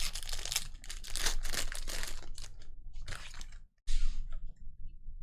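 Wrapper of a 2020 Panini Chronicles football card pack crinkling and tearing as it is ripped open by hand, in several crackling bursts with a short pause near the middle.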